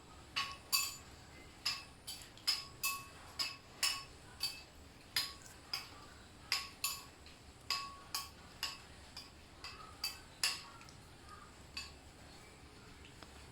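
Light metallic clinks, irregular at roughly two a second, each ringing briefly like a metal dish being knocked. They stop about eleven seconds in.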